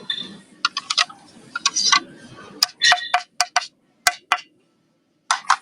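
Irregular sharp clicks and light taps, about a dozen, of hard objects being handled and knocked together, some with a brief ring.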